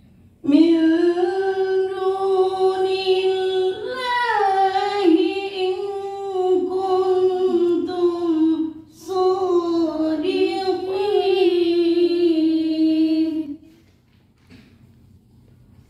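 A female voice chanting Quran recitation in long held melodic notes, in two phrases with a breath about nine seconds in. The voice is hoarse from a cough.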